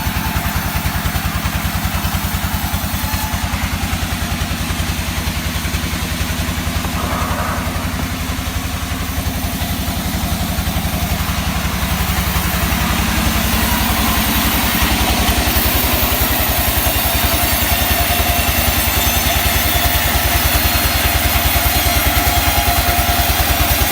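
Sawmill machinery running steadily: an engine-driven drone with a fast, even pulse, growing a little louder and hissier about halfway through.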